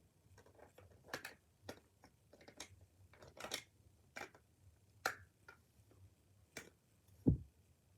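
Plastic parts of a disassembled Nerf Double Strike blaster clicking and knocking as they are handled, about a dozen separate sharp clicks, with a dull thump near the end.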